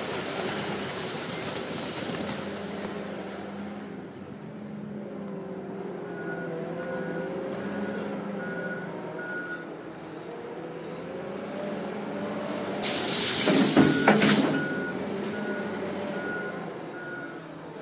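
Komatsu WA320 wheel loader's diesel engine running and revving, with its reversing alarm beeping about twice a second in two spells. About 13 seconds in comes a loud rush with sharp cracks as the load of crushed glass pours out of the raised bucket.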